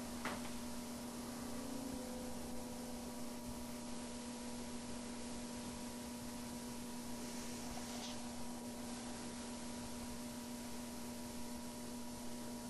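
Vintage Eskimo box fan's electric motor running steadily with a constant low hum and soft air noise.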